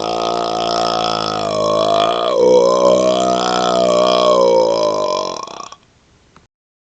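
A man's long, drawn-out burp, one continuous pitched belch that shifts in tone about two seconds in and trails off near the six-second mark.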